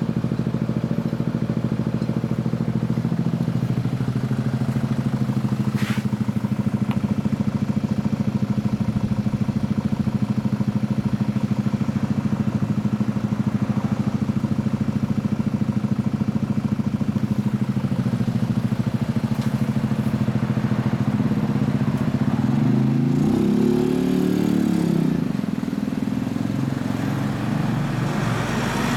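Yamaha XJ400's air-cooled inline-four idling steadily, given one throttle blip about 23 seconds in that lifts the pitch and lets it fall back over about two seconds.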